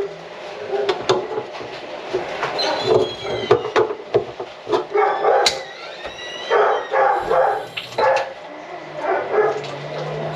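A dog barking repeatedly in short, irregular bursts, with a few higher whining glides between the barks.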